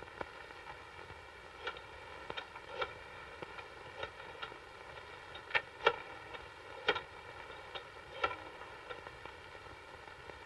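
Faint irregular clicks and light taps, roughly one or two a second, over a steady hiss and hum.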